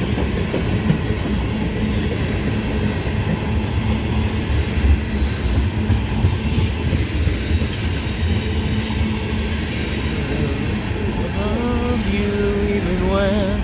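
Freight train cars rolling past with a steady rumble of steel wheels on rail, joined by a thin high wheel squeal from about halfway through for several seconds.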